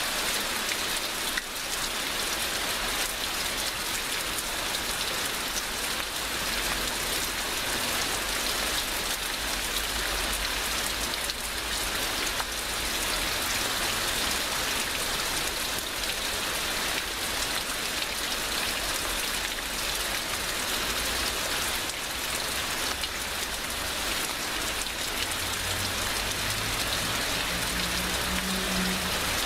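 Heavy rain pouring steadily, a dense even hiss of drops on surfaces. A faint low hum comes in during the last few seconds.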